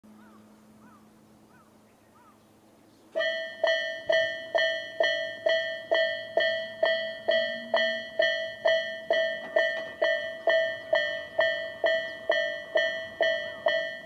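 Japanese railway level crossing alarm in Tobu Railway's 'sound A', sounding from both sides of the crossing: electronic bell-like strikes about twice a second, starting about three seconds in, warning that a train is approaching.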